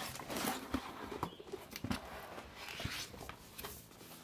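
Cardboard mailer box being opened by hand: scraping, rustling and scattered light knocks and clicks as the lid is pried up.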